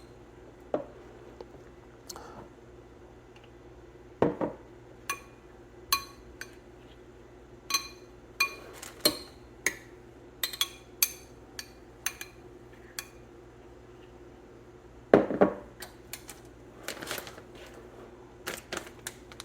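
A spoon clinking and scraping against a bowl in scattered irregular taps, each with a short ring, as enchilada sauce is spread over the tortillas. The taps come louder about 4 seconds in and again about 15 seconds in.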